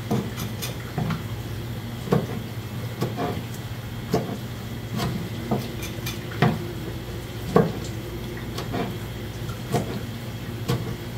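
Kitchen knife cutting gizzard shad on a plastic cutting board: sharp knocks of the blade striking the board at an uneven pace, about one a second, over water running from a hose and a steady low hum.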